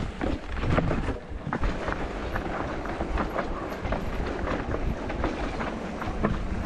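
Mountain bike riding over a rough dirt trail: tyres crunching on loose ground and the bike rattling in a fast, irregular clatter over a steady low rumble.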